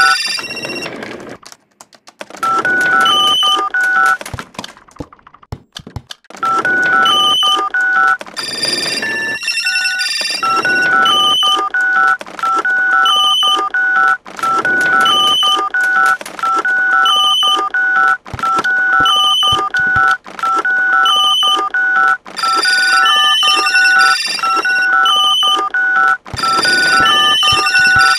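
Electronic ringtone-style melody of short, high beeping notes, the same stepped phrase repeating over and over about every two seconds with a few brief breaks.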